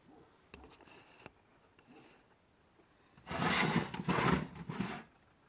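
Plastic UPS case being handled and turned around on a wooden bench: a few faint clicks, then about two seconds of scraping and rubbing.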